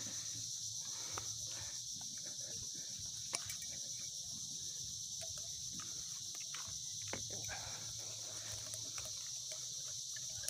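Steady high-pitched insect chorus with scattered faint ticks and one sharp click about three seconds in.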